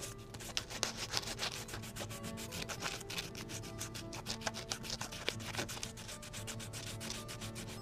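Sandpaper rubbed by hand over a small carved wooden lure body in quick back-and-forth strokes, smoothing down the knife-carved bumps.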